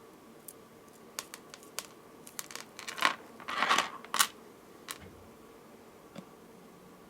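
Beads clicking and rattling as they are handled and strung onto a necklace thread: scattered light clicks, a denser rattle about three to four seconds in, and a last tick near the end.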